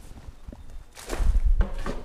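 Pitchfork tines digging into and turning a pile of lumpy spent mushroom-substrate compost, with one scraping, crunching stroke starting about a second in.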